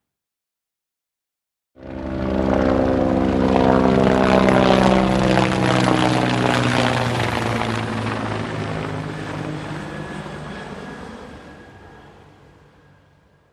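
Helicopter flying over: it cuts in abruptly about two seconds in, is loudest around five seconds, then its pitch falls as it passes and it fades away.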